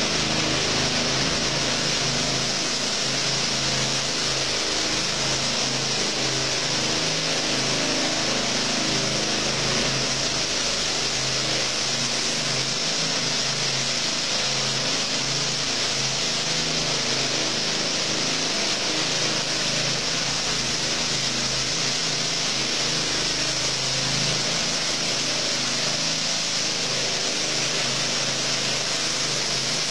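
Petrol-engined power trowel running steadily as it floats wet floor screed, a constant engine drone with a hiss over it.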